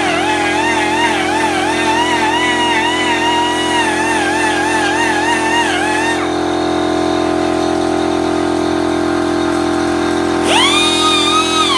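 Handheld rotary carving tool whining as its bit cuts into wood, the pitch wavering and sagging as the bit is pressed in. About six seconds in the whine stops, then near the end it sweeps up sharply as the motor spins back up, over a steady low hum.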